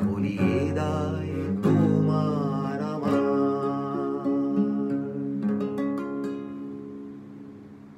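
Classical guitar strummed through the song's closing chords, with a wordless held vocal line over the first few seconds. The last chords ring out and fade away.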